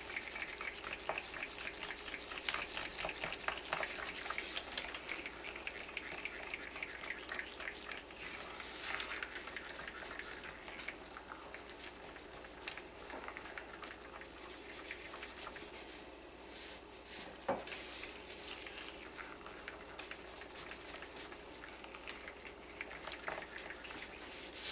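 Spatula stirring thick soap batter in a crock pot, working yogurt into it: soft scraping with small wet clicks. The clicks are busiest in the first few seconds and then thin out.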